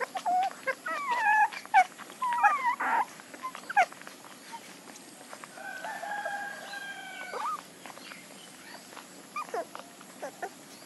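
Nursing puppies squeal and whimper in short, falling-pitch squeaks among small suckling clicks, busiest in the first four seconds and again near the end. A rooster crows once in the middle, a held call of about a second and a half.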